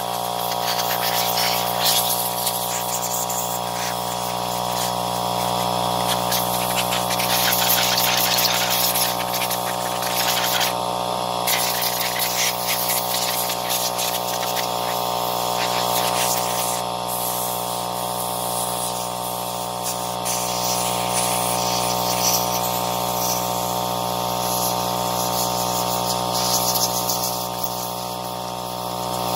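Compressed air hissing from a blow-gun nozzle as it blows dirt off the chain and sprocket area of a Husqvarna 236e chainsaw, cutting off briefly twice. Under it runs a steady mechanical hum, the air compressor running.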